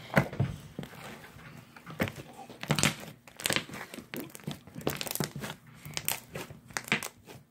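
Homemade glue slime being worked to make a bubble, giving irregular crackles and small pops throughout.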